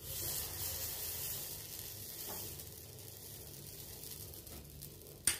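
Batter sizzling as it is spooned into a hot, lightly oiled appe pan cavity. The sizzle starts at once, is loudest at first and slowly dies down, with a short click near the end.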